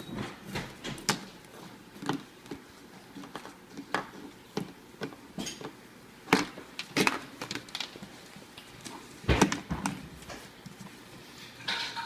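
Irregular clacks and knocks of small hard objects being handled and set down on a hard surface, a few sharper than the rest, with the loudest cluster about nine seconds in.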